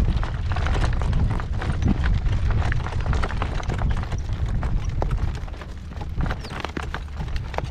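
Horse's hooves beating in a trot while he pulls a light cart, over a heavy low rumble of strong wind buffeting the microphone.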